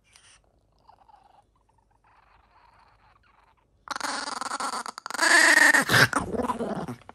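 Chihuahua growling over its tray of food as a hand reaches for it, a sign of the dog guarding its food. The growl starts about four seconds in and gets louder about a second later, stopping just before the end.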